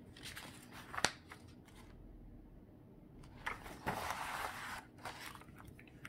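Hands turning a picture book's paper page. A sharp tap comes about a second in, then the paper rustles for about a second and a half near the middle.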